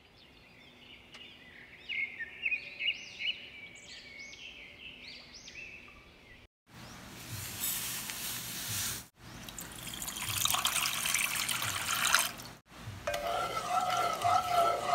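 High chirping for about the first six seconds. Then unflavored gelatin powder is poured into a nonstick pot with a hiss, water is poured in after it, and a wooden spoon stirs the liquid in the pot.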